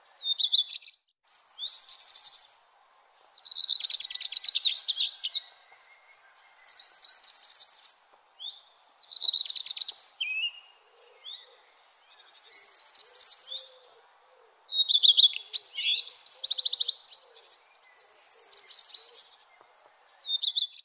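Songbirds singing in short phrases that come every two to three seconds. A higher, buzzier phrase alternates with a lower, rapid trill, about a dozen phrases in all.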